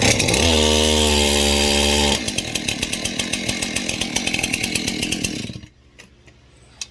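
Two-stroke chainsaw firing on half choke: it catches and revs up, holds a steady high run for about two seconds, then drops into a rougher, rapidly pulsing run and cuts out suddenly about five and a half seconds in.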